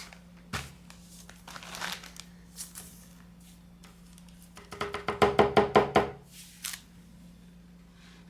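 Handling noises while working on a super-glue and baking-soda repair of a plastic piece: a click, light rustling, then about five seconds in a burst of rapid rattling taps with a ringing tone, over a low steady hum.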